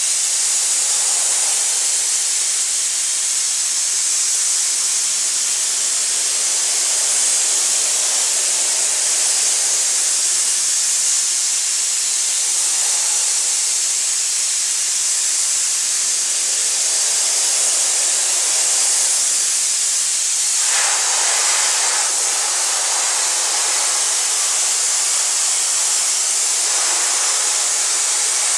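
Aerogommage gun blasting fine abrasive with compressed air to strip the finish off a wooden chair: a steady hiss of air and grit. About three-quarters of the way through, the hiss briefly grows fuller for a second or so.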